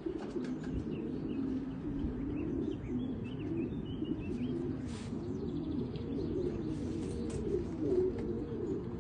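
Racing pigeons cooing continuously in the loft, several overlapping voices, with a few faint high chirps about three seconds in.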